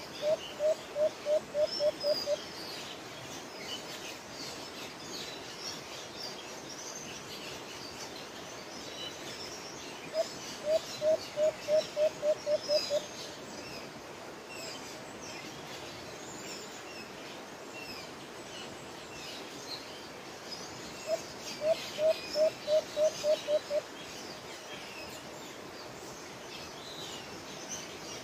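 White-eared brown dove calling: three series of about eight low, evenly spaced coos, each series lasting about two and a half seconds and coming about ten seconds apart. Faint high chirps of small birds run underneath.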